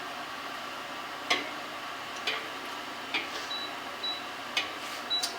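A few light, sharp clicks or taps, about a second apart, over a faint steady background hum.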